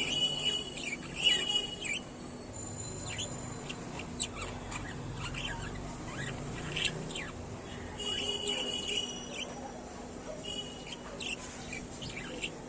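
Budgerigar warbling: a run of quick chirps, squeaks and sliding notes, with bursts of fast repeated notes near the start and again about eight seconds in, over a faint steady hum.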